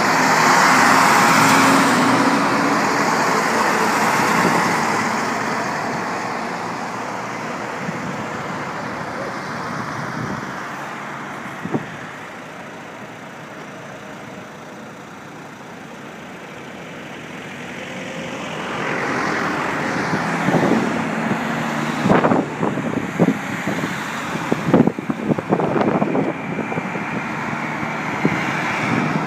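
Three-axle military cargo trucks driving past close by, their diesel engines running and tyres on the road, the sound fading as the column moves on. About two-thirds of the way through, more road traffic passes close, including a bus, with a run of sharp knocks on the microphone.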